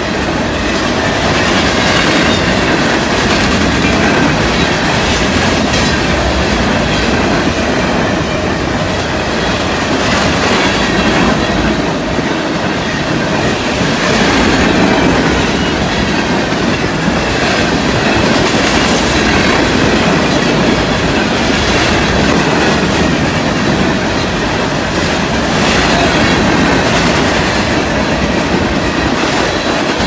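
A long freight train of open-top coal hoppers passing at speed: a loud, steady rumble and clatter of steel wheels over the rail joints.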